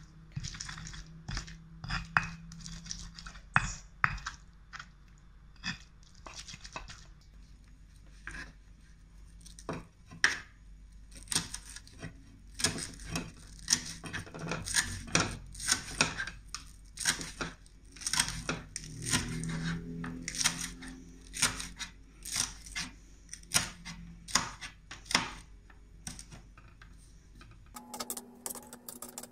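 Stone pestle working chili sambal in a stone mortar (cobek and ulekan), then a kitchen knife chopping spring onions on a plastic cutting board: a long run of sharp, uneven chops, thickest through the second half.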